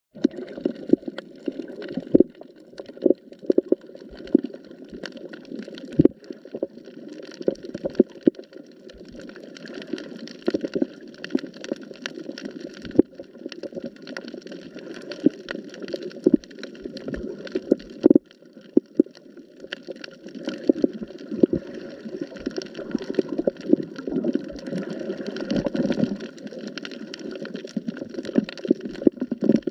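Water gurgling and sloshing, with many short clicks and pops throughout.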